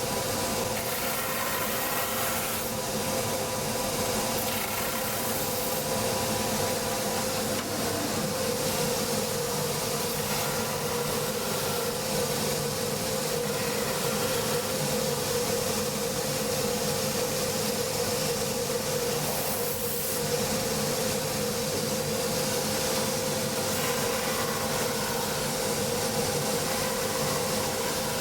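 Cobbler's electric sanding and buffing machine running steadily with a constant hum while the sole edge and steel toe tip are finished.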